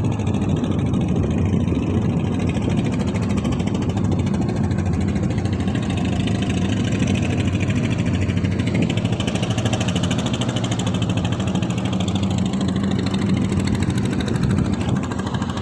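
Small fishing boat's engine running steadily at low speed, an even drone with no change in pitch.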